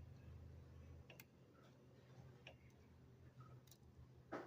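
A few faint, irregular clicks of a homemade hook pick working the pins inside a six-pin Dexter padlock.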